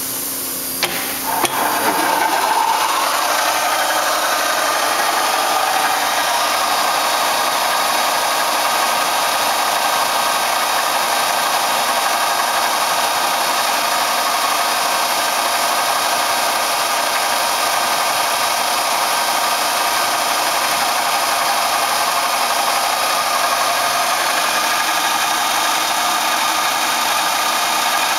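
1982 Phillips gun drilling machine running: a couple of clicks about a second in, then a louder, steady mechanical whine and hiss with several held tones that stays even.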